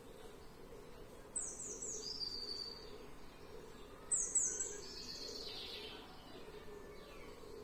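A songbird singing two short phrases, about a second and a half in and again about four seconds in, each a quick run of three or four high notes falling in pitch and then a lower, longer note, over a faint steady background noise.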